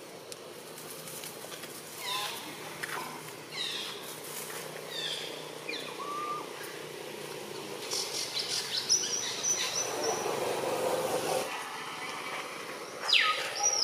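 Outdoor animal calls: short, high calls that slide downward in pitch, repeating every second or so, with a brief high steady buzz about two-thirds of the way in.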